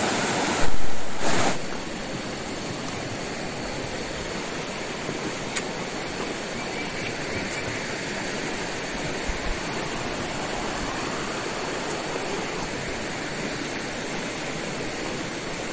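Steady rushing of a muddy river flowing over rocks and small rapids, with a loud muffled thump about a second in. After the thump the water noise is a little quieter.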